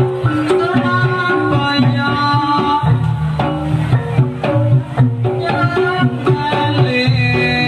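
Jaranan (kuda kepang) accompaniment music: hand-drum strokes played over a melody of held pitched notes.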